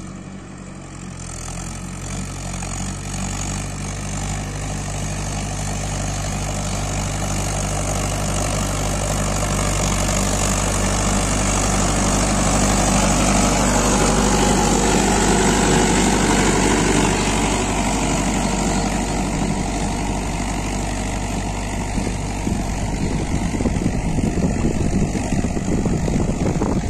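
Mahindra 585 DI tractor's diesel engine running steadily under load while pulling a five-disc plough through the soil. It grows louder as the tractor approaches, dips slightly in pitch as it passes close by about halfway through, and runs on as it is followed from behind.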